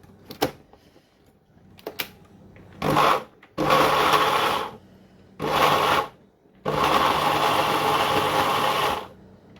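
Electric blender run in four bursts, the last and longest about two seconds, chopping onions, shallots, garlic, galangal, lemongrass and coriander with oil into green curry paste. A couple of light clicks come before the first run.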